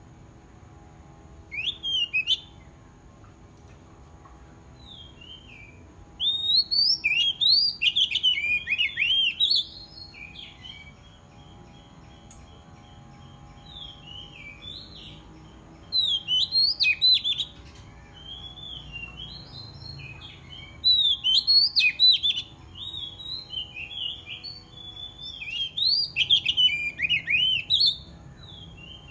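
Oriental magpie-robin singing: loud spells of rapid, varied whistled phrases a few seconds apart, with softer notes in between. It is a fierce, persistent song, used to call rival birds.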